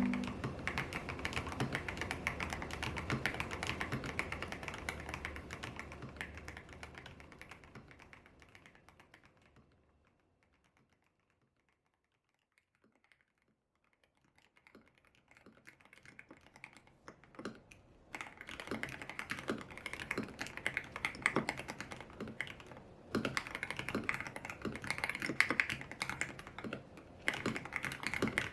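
Typing on a YUNZII X75 Pro mechanical keyboard with Kaith Jellyfish switches and milky keycaps, tape-modded and lubed: fast key clacks that fade away, stop for a few seconds, then come back and settle into a steady stream of keystrokes.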